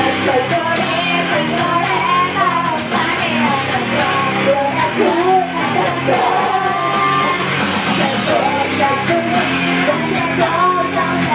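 Live rock music with guitars and drums, a singer's voice carrying a melody over it, with some shouted vocals.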